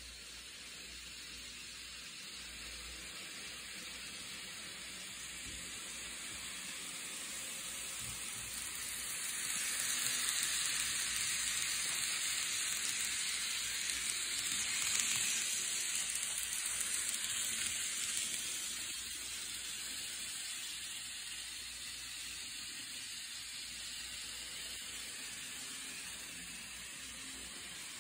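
N scale model freight train rolling along the track: a steady hiss from the small wheels and running gear on the rails. It grows louder as the cars pass close by in the middle, then gradually fades as they move away.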